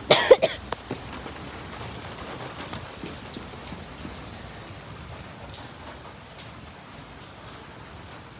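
Steady rain falling, an even hiss that fades slightly. A brief loud clatter comes at the very start.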